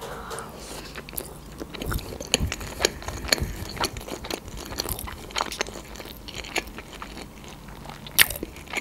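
Close-miked chewing of a mouthful of sushi roll: wet mouth sounds with irregular small clicks and crunches, and a louder click near the end.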